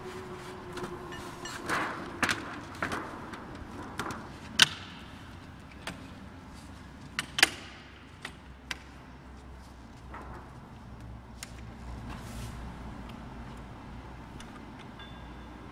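Scattered clicks and knocks of metal parts as the strip guides of a compact metal-strip slitting machine are handled and adjusted, the two sharpest knocks near the middle, over a low steady hum.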